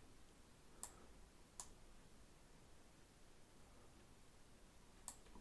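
Three faint, sharp computer mouse clicks, about a second in, just after, and near the end, over near silence.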